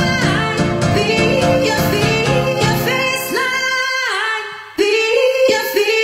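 Dance track with a sung vocal over a full beat and bass. About two-thirds of the way through, the bass and beat drop out and there is a brief dip, then the vocal carries on over lighter backing.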